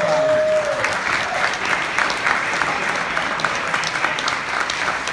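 Audience applauding steadily, with one held call from the crowd rising above the clapping in the first second.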